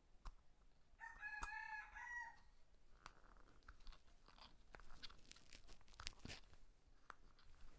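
A rooster crows once, faintly, starting about a second in and lasting just over a second. Then come scattered small plastic clicks and scrapes as a screw is worked into a chest-harness camera mount.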